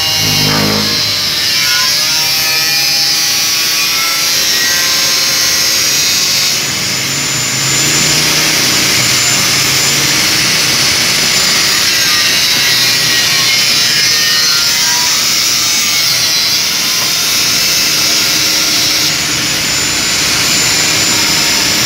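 Angle grinder with a thin cut-off disc cutting through stainless steel sheet: a steady, loud, high-pitched screech that shifts slightly as the disc's load changes, easing briefly about seven seconds in.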